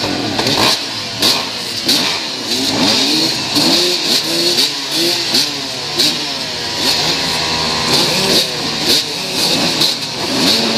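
Several dirt bike engines at the starting gate revving over and over, their pitches rising and falling and overlapping, with frequent sharp cracks among them.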